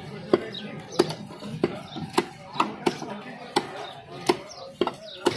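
Large knife chopping a conger eel into chunks on a round wooden stump block: a steady run of sharp chops, about ten of them, roughly two a second.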